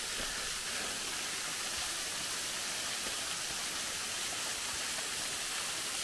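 Butakovsky waterfall, thin streams of water falling and splashing down a rock face: a steady, even hiss of falling water.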